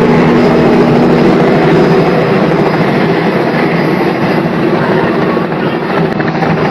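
Helicopter running, a loud steady engine and rotor noise with a low hum, easing slightly near the end.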